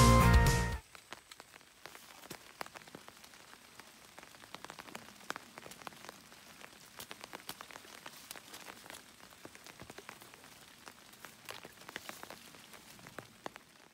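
Background music cuts off about a second in, followed by a faint, irregular patter of small ticks and crackles.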